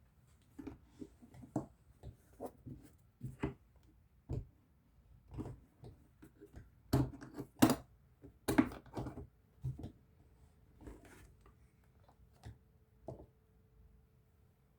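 Irregular knocks, clicks and light rattles of hard plastic tools and their case being handled, loudest in a cluster about seven to nine seconds in.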